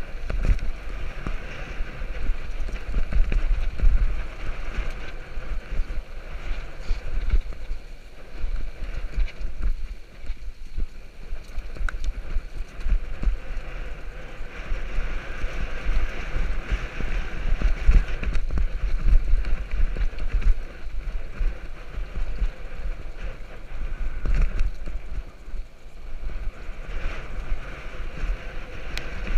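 Mountain bike descending a rough dirt trail: a steady low rumble of wind buffeting the microphone, with the bike rattling and knocking over bumps and the tyres hissing on the loose dirt.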